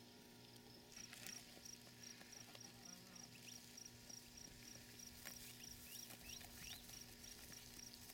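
Faint, high-pitched cricket chirping in an even rhythm of about three chirps a second, starting about a second in, with a few soft clicks and short rising chirps among it.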